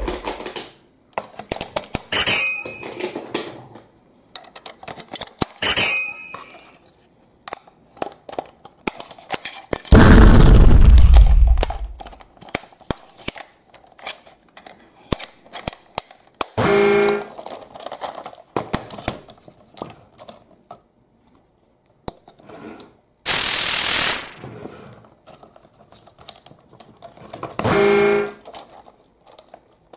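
Hard plastic toy monster truck being handled and worked on by hand: a run of small clicks and knocks as its parts are turned and pressed. A few louder short sounds stand out: a deep burst about ten seconds in, a brief hiss about two-thirds through, and two short pitched tones, one past the middle and one near the end.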